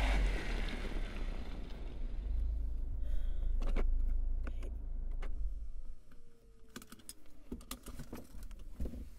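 Mini Cooper car with a strong low rumble as it rolls up. About six seconds in, the rumble drops away, leaving a series of clicks and knocks and a faint falling whine.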